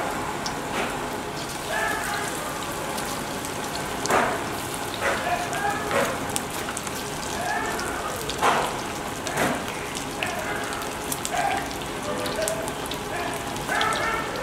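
Batter-coated chicken pakora pieces deep-frying in hot oil in an aluminium kadai: a steady sizzling hiss, with sharper crackles and spits every second or two.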